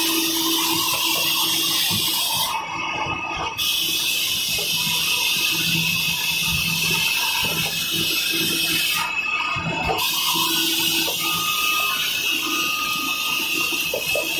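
IMAKO high-speed V-fold tissue packing machine running: a steady high hiss over a low motor hum, with a fast clatter of small mechanical clicks and knocks. The hiss cuts out briefly twice, once a few seconds in and again about two-thirds of the way through.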